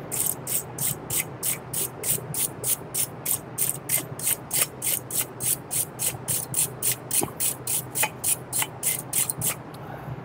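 A stiff brush scrubbing a brake-cleaner-wet caliper bracket in quick back-and-forth strokes, about three a second, stopping shortly before the end.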